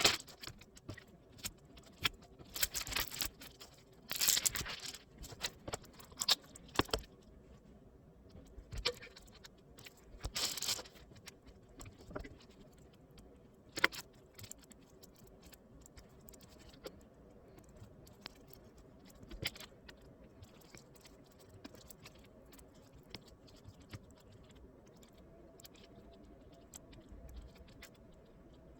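Small hardware being handled during a motherboard replacement: scattered clicks, taps and rattles like small metal parts and tools. These are busiest in the first eleven seconds or so, then thin out to occasional faint ticks over a low steady hum.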